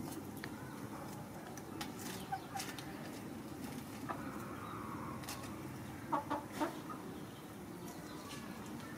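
Three short animal calls in quick succession about six seconds in, over a steady low background hum and a few faint clicks.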